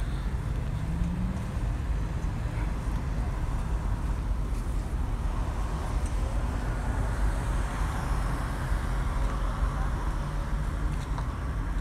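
Steady low outdoor rumble with no single event standing out, its upper hiss growing somewhat louder for a few seconds past the middle.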